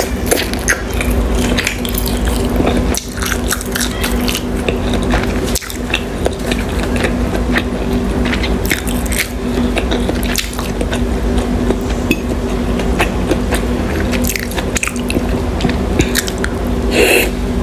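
Close-miked wet chewing of dim sum: soft squishy bites, lip smacks and frequent small mouth clicks, over a steady low hum.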